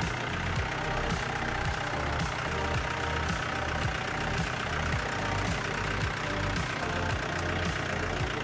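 A Mahindra jeep's engine running steadily as the jeep drives up close and past on a muddy track.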